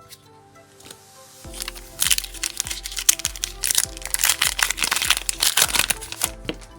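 Foil booster pack wrapper crinkling and tearing as it is opened. The loud crinkling starts about two seconds in and stops shortly before the end, over background music.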